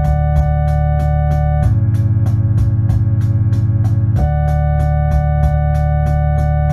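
Lo-fi instrumental music on an Electone electronic organ: sustained chords over a deep bass that change about two seconds in and again about four seconds in, with a steady ticking beat of about four clicks a second.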